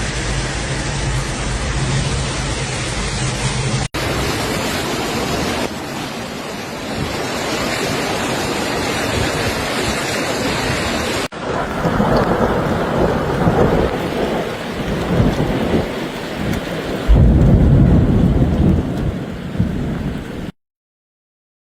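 Heavy rain and rushing water in a series of clips that change abruptly several times. A louder low rumble comes near the end, and then the sound cuts off suddenly about a second before the end.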